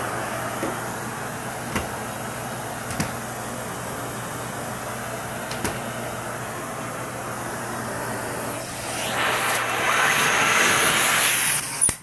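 Beam 287S central vacuum pulling air through its hose and floor tool as the tool is pushed over carpet: a steady rushing hiss over a low hum, with a few light knocks of the tool. The rush grows louder about nine seconds in, then a sharp click and the sound drops away suddenly at the end.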